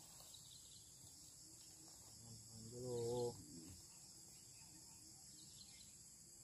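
Faint, steady high-pitched buzzing of insects, with a man's short low wordless murmur about three seconds in.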